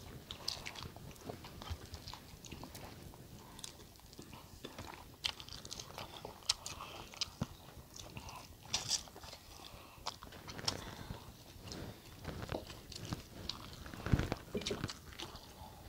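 Close-up eating sounds: chewing and biting food, with many small clicks and taps scattered throughout.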